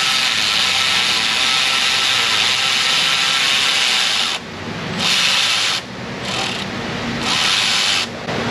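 Milwaukee cordless electric ratchet running, first in one long run of about four seconds, then in three short bursts, as it spins snug locking-style 12 mm nuts off catalytic converter studs. The locking nuts are tight enough that they heat up as they turn.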